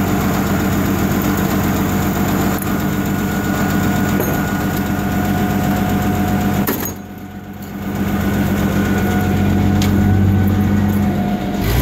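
Hyster S80XL2 forklift's LP-gas engine running steadily with a low drone. The sound drops for about a second around seven seconds in, then comes back.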